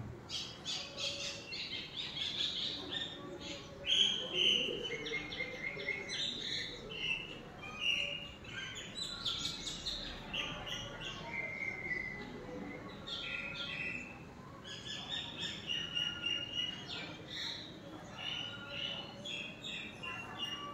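Several birds chirping, a busy stream of short, high notes overlapping one another.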